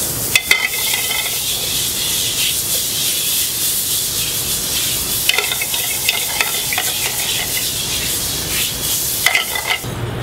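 Food sizzling in hot oil in a pan, with scattered clinks of a utensil against the pan as it is stirred. The sizzle cuts off abruptly just before the end.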